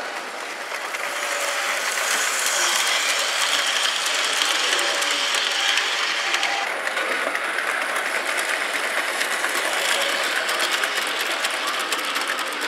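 Model train running on the layout close by: a dense, steady rattle of wheels on the track with many fine rapid clicks, growing louder about a second in.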